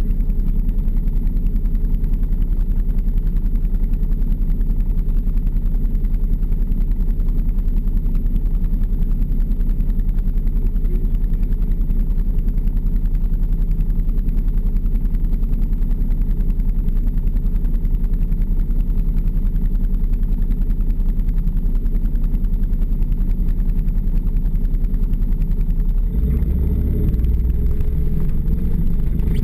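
Snowmobile engine idling steadily while the machine sits still. Near the end the engine note changes and grows heavier as it speeds up to pull away.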